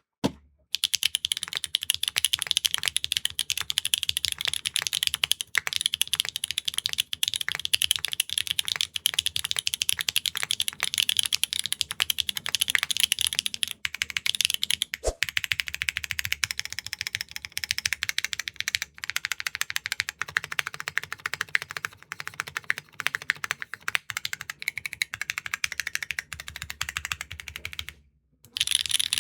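Continuous fast typing on a mechanical keyboard with Kailh Calligraphy R2 linear switches (LCP housing, MF stem) in an aluminium plate under GMK keycaps: a dense run of bright, high-pitched key clacks with a couple of short pauses. The reviewer finds these switches inconsistent in sound from press to press.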